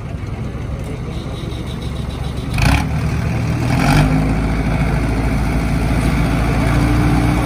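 Diesel tractor engines of a Ford 3000 and a Sonalika RX 60 running hard in a tug-of-war pull. Two sudden loud noises come a little over a second apart near the middle, after which the engine sound is louder and steadier.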